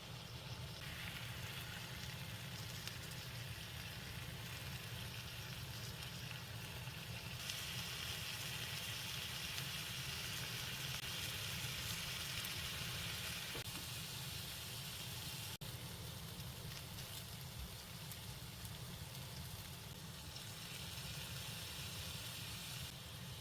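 Food sizzling in a frying pan: a steady frying hiss that grows louder and softer in steps, with a single sharp click about two-thirds of the way through.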